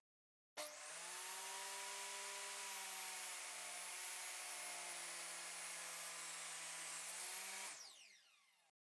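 Table saw switched on, spinning up quickly, then running steadily with a high whine. About 7.7 s in it is switched off and winds down, its pitch falling as it fades.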